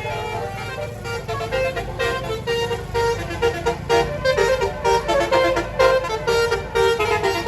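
Tour bus's 'telolet basuri' multi-tone musical horn playing a quick tune of short notes, growing louder about halfway through, over the low rumble of engines.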